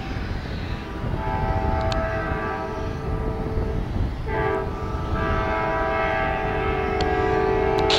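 Diesel locomotive air horn sounding a steady multi-note chord in long blasts, with a brief break about four seconds in, over a low rumble.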